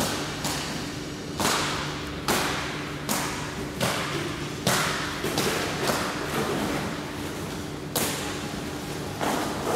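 A run of sharp knocks and slaps at irregular intervals, roughly one a second, from workers handling parts while assembling a frame machine, over a steady low hum.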